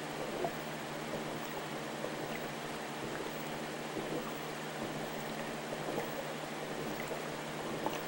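Steady trickling and bubbling of water in an aquarium tank, with faint scattered ticks and a low steady hum underneath.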